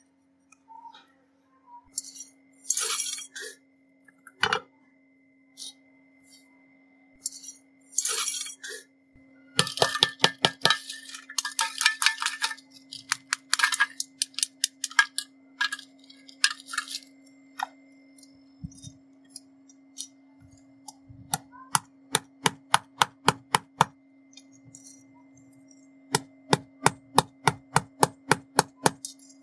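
Metal being struck with a small hammer in quick runs of taps, about three a second, with a few short rasping scrapes in between.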